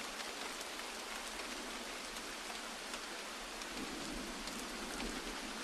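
Steady rain falling: an even hiss dotted with small drop ticks.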